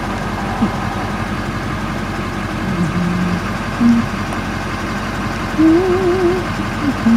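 Vehicle engine running steadily at idle, heard from inside the cab, with a few short low wavering hums over it, the longest a little past the middle.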